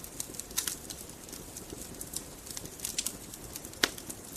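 Wood fire crackling: irregular snaps and pops over a soft steady hiss, with one sharper pop near the end.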